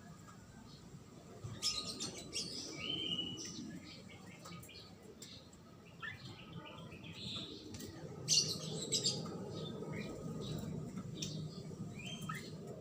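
Bird chirping and calling in short bursts, loudest about one and a half seconds in and again about eight seconds in, over a low steady background noise.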